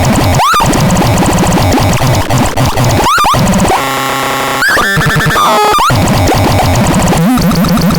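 Synthesizer making harsh, noisy electronic tones, with quick rising pitch sweeps about half a second in, around three seconds in and near the end, and a brief steady buzzing chord in the middle.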